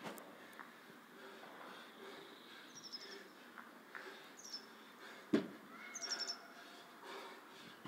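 A small bird calling over and over, each call a quick run of high descending chirps, about four times. A single dull thump about five seconds in is the loudest sound.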